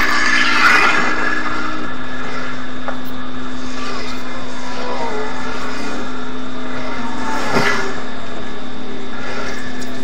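Road traffic passing, one vehicle about a second in and another late on, over a steady hum.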